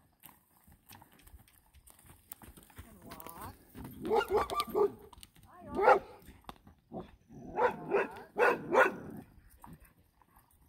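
A dog barking in short runs: a quick run of about four barks midway, a single bark shortly after, then another run of about four barks later on.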